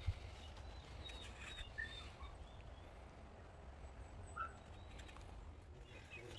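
Faint outdoor ambience: scattered short bird chirps over a steady low rumble, with a few faint clicks.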